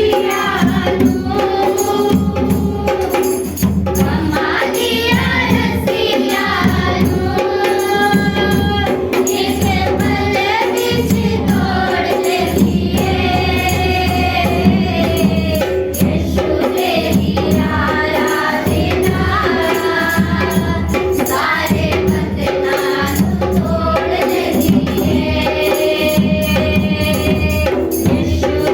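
A group singing a Hindi Christian worship song to Jesus, with instrumental accompaniment and a steady percussion beat.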